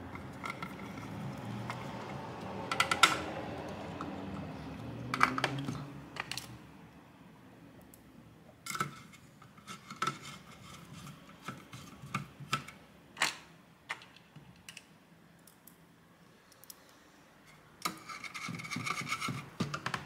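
Screwdriver driving small screws into a graphics card's metal backplate by hand: scattered clicks and light metal taps, with a few louder knocks in the first half and a quick run of clicks near the end.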